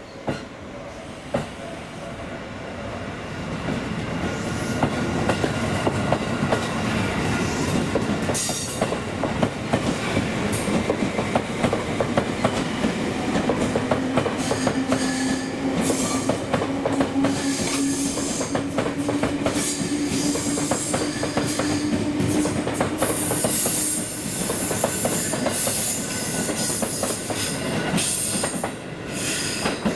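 JR East 251 series ten-car electric express train pulling out and passing close by, growing louder over the first few seconds, its wheels clicking over the rail joints. A low steady tone rises slightly in pitch through the middle.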